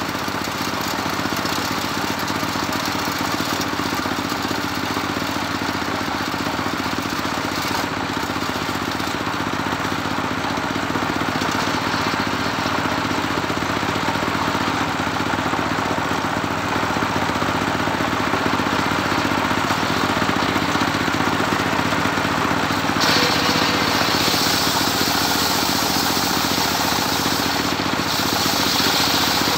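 Homemade circular saw bench running steadily, its engine-driven blade spinning with a constant mechanical hum. About three-quarters of the way through, a harsher hiss joins in as the blade bites into a plank of medang wood.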